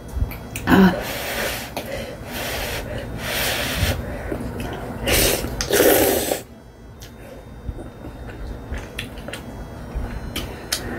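A person slurping spicy instant stir-fried noodles in several long, noisy pulls, the loudest a little past halfway. After that it goes quieter, with soft chewing.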